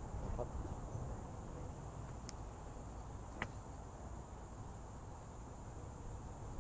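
A golf club strikes a ball off the tee once, a single sharp crack about three and a half seconds in, over steady high insect chirring.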